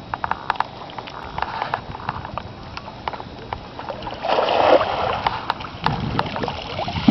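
Water splashing and dripping as cast nets are handled and hauled in a shallow shrimp pond, with scattered small ticks throughout and a louder splash about four seconds in, as a thrown cast net lands on the water.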